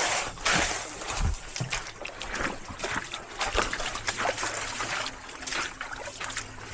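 Seawater sloshing and splashing in a run of irregular short splashes.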